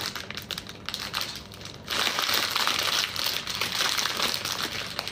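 Packaging crinkling and rustling as a box is unwrapped and opened by hand, getting louder about two seconds in.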